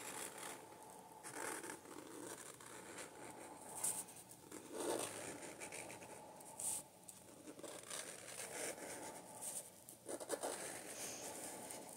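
Faint, irregular scratching and rubbing of a felt-tip marker colouring on paper, stroke after stroke.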